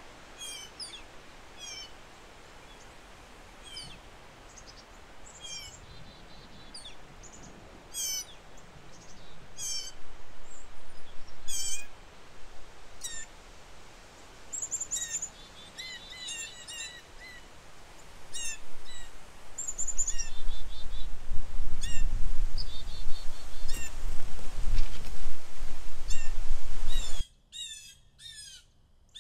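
Small birds chirping over and over in short, quick notes, with wind gusting across the microphone as a low rumble that grows loud about two-thirds of the way through. Near the end the wind and background noise cut off suddenly, leaving only a few chirps.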